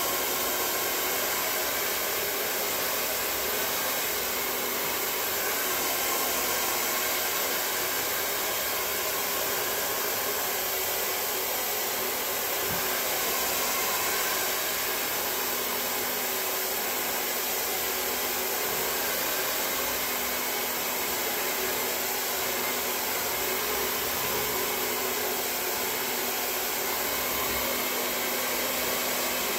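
Handheld hair dryer running steadily as it is blown through damp hair.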